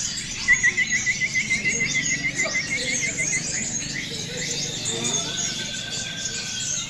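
Several caged contest songbirds singing at once in a dense chorus of high chirps and whistles. About half a second in, one bird gives a fast trill of repeated notes lasting about three seconds; later, one holds a steady whistle.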